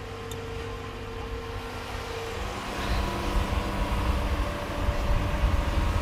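Serra MD 90 mobile sawmill running. About two seconds in, its steady note changes and it grows louder, with a heavier low rumble.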